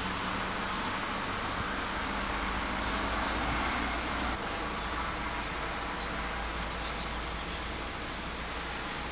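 Steady outdoor background at a building site: an even hiss over a low rumble, with short high chirps coming and going from about one to seven seconds in.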